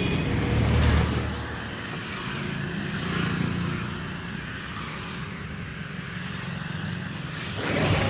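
Royal Enfield Thunderbird 500 single-cylinder engine running through its stock exhaust, swelling briefly about a second in, as if from a blip of throttle, then settling to a steady idle.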